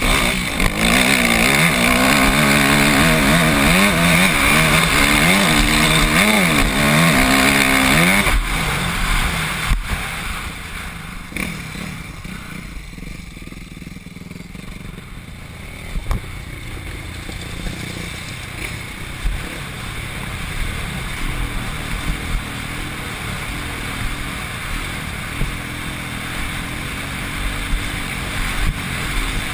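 Dirt bike engine revving hard on a steep hill climb, its pitch rising and falling again and again. After about eight seconds it drops to quieter, steadier running.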